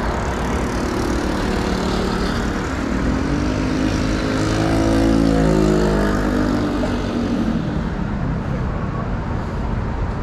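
City road traffic: a steady wash of tyre and engine noise. In the middle a motorcycle engine passes close by, its pitch rising and then falling as it goes past.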